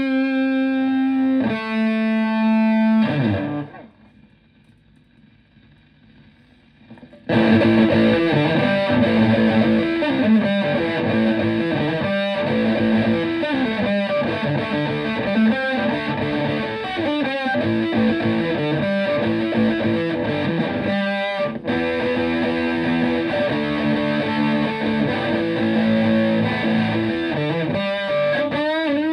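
Epiphone Les Paul electric guitar through a Tone Bender MkI fuzz pedal and a Fender Twin Reverb-style amp: held fuzzed notes end in a slide down about three seconds in. The guitar then falls almost silent for a few seconds before a riff of fuzzed notes starts and runs on, with a string bend near the end.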